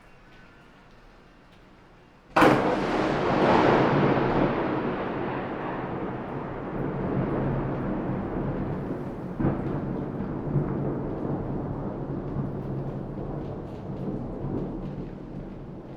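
Faint steady rain, then a sudden sharp thunderclap a couple of seconds in, followed by a long rumble of thunder that slowly fades, with a second, smaller crack about halfway through.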